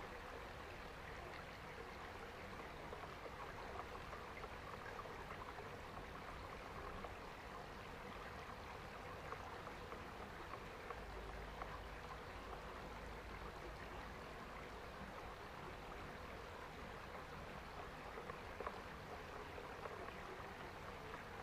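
Shallow woodland stream trickling and flowing steadily and softly.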